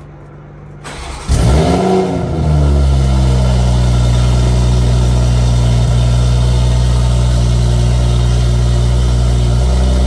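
Toyota A90 Supra with a Remark aftermarket exhaust and catless downpipe starting up. The engine catches about a second in, flares up in revs and falls back, then settles into a steady, deep idle.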